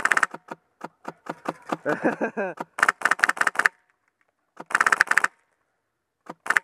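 A&K M249 SAW airsoft gun with a Polarstar high-pressure-air engine firing several short, rapid bursts of sharp snaps, with a few single shots in between.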